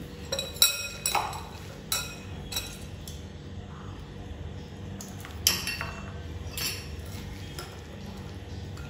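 A serving spoon clinking against bowls as salad is dished out: about ten irregular clinks, some ringing briefly, the sharpest about half a second in and again around five and a half seconds.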